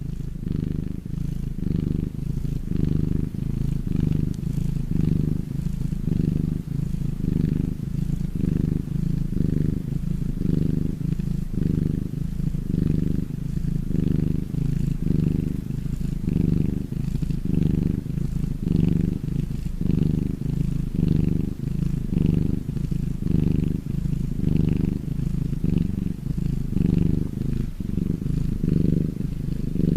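Domestic cat purring, a low rumble that swells and eases about once a second with its breaths.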